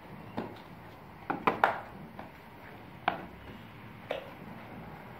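A cardboard toy box knocked and tapped against a wooden table as it is handled and its top flap worked open: several sharp knocks, three in quick succession about a second and a half in.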